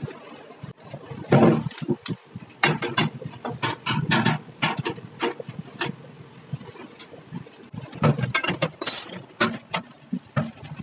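Irregular metal clanks and knocks from a steel bar being handled and clamped in a bench vise, over a low steady background rumble.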